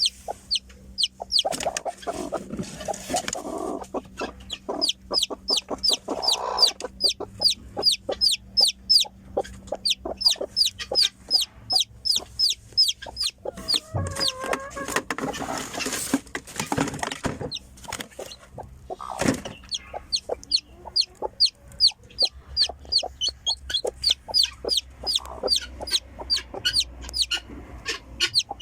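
Newly hatched domestic chicken chick peeping steadily: a fast run of short, high-pitched peeps, several a second, each falling in pitch. A few lower, noisier sounds come in and out about two seconds in, around the middle, and again shortly after.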